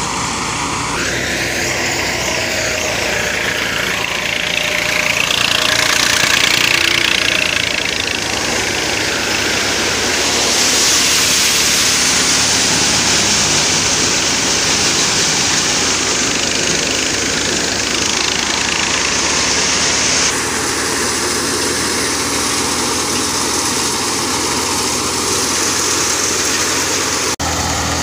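Massey Ferguson 240 tractor's three-cylinder diesel running steadily under load, driving a belt-powered threshing machine; the thresher's drum whirs loudly as mustard stalks are fed through it.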